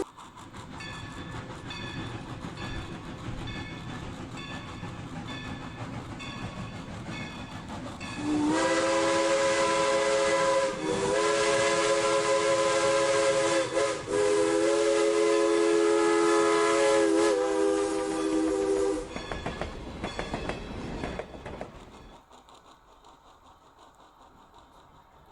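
Dubbed-in steam locomotive sound effects: steady running with a repeating high ringing pattern about twice a second, then a loud steam whistle blown in three blasts, the first rising into pitch, with short breaks between them. The whistle dies away and the sound fades out near the end.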